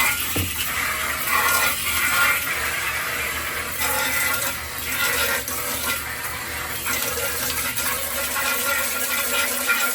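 Water spraying steadily, rinsing sludge off washing machine parts, with a continuous hiss and splashing.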